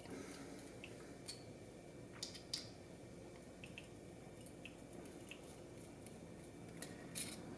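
Faint, scattered small clicks and taps of small tools on the plastic and metal parts of a drone gimbal being taken apart, with the sharpest clicks about two and a half seconds in and just after seven seconds.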